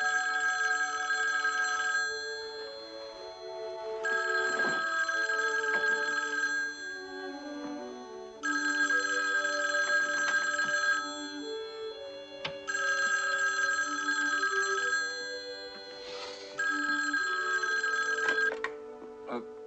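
Black rotary desk telephone's bell ringing five times, each ring about two seconds long with about two-second gaps, over soft background music.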